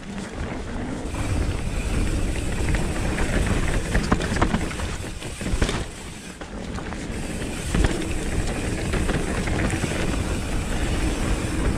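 Nukeproof Reactor 275 mountain bike descending a dirt trail: wind rushing over the action-camera microphone with tyre noise and the rattle of the bike, and several sharp knocks as it hits bumps and roots.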